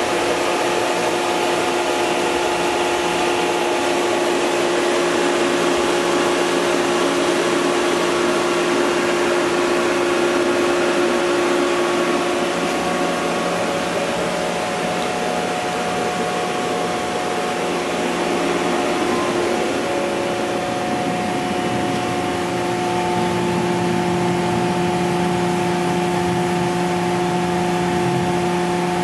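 Steady whirring hum of a powered-up Mori Seiki NVX5100 CNC vertical machining center, heard at its open electrical cabinet: cooling fans and motors running under a constant electrical hum. The hum shifts slightly in pitch past the middle.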